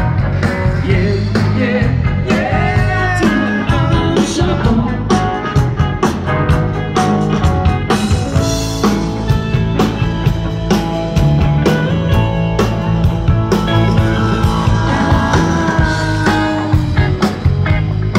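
Rock-and-roll band playing: electric guitar and bass over a steady drum beat, with some singing.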